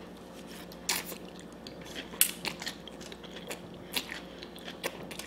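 Close-miked eating of a mouthful of noodles: chewing with wet, smacking mouth clicks at irregular intervals.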